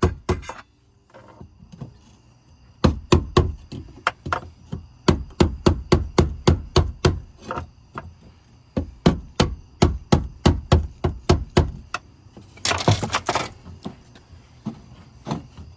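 Rapid, evenly spaced metal strikes, about three a second, like hammering or tapping on a part to loosen it, with a short break partway through. A brief hissing rush follows near the end.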